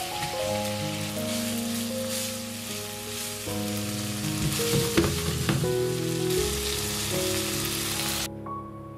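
Chicken breasts frying in butter and soy sauce in a nonstick pan, sizzling steadily, with a few clicks of metal tongs against the pan about five seconds in. The sizzle cuts off suddenly near the end, leaving only the background music that plays throughout.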